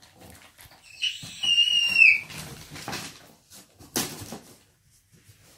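Toys being rummaged out of a cardboard box: rustling and a couple of sharp knocks. About a second in there is a high-pitched squeal lasting about a second that dips in pitch at its end.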